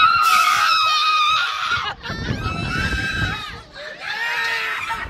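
Several riders on a swinging pirate-ship ride screaming together in three long, high bursts with short breaks between, the screams rising and falling with the swings.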